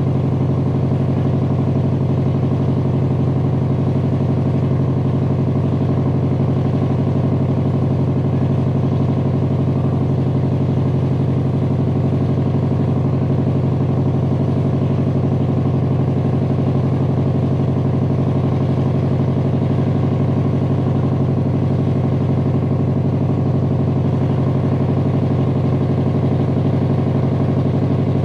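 The 1971 Pontiac Bonneville's 455 V8 (two-barrel carburettor, points ignition) idles steadily through its single exhaust with a glasspack muffler, still warming up after a cold start without a choke. The idle is even throughout, with no change in speed.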